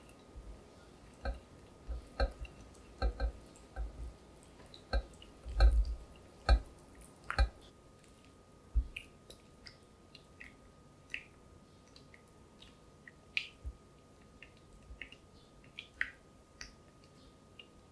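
Silicone spatula stirring chopped chocolate and butter as they melt in a glass bowl over a hot water bath. In the first half the spatula knocks and taps sharply against the glass. After that come softer, sticky, wet clicks as the chocolate turns smooth.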